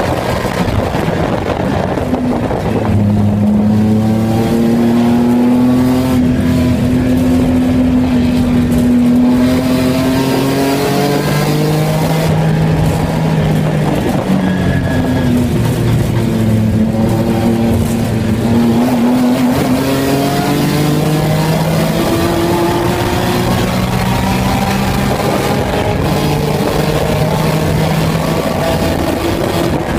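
Race car engine heard from inside the stripped, roll-caged cabin while lapping a track, its pitch climbing slowly under load, then dropping back twice in the middle as the driver lifts or shifts before climbing again, over steady road and wind noise.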